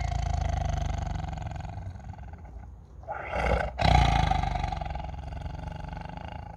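A tiger roaring: a loud roar trails off, a sharp breath is drawn in about three seconds in, and a second roar follows and slowly fades.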